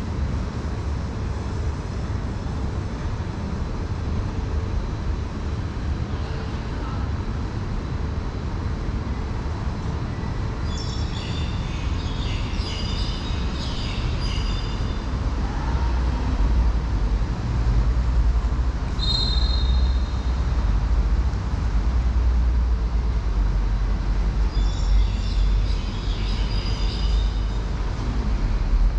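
Outdoor ambience: a steady low rumble that grows louder about halfway through. Small birds chirp in three short bouts over it.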